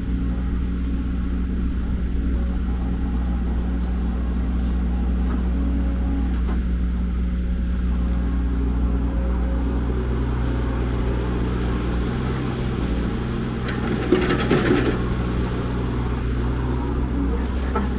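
Diesel engine of a Cat E120B excavator running steadily, with a short burst of clattering about three-quarters of the way through.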